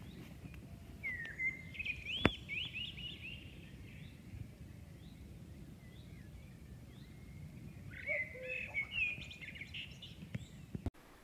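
A songbird singing in two phrases of quick chirps and warbles, about a second in and again near the end, over a faint low rumble of outdoor background noise. A single sharp click comes early in the first phrase.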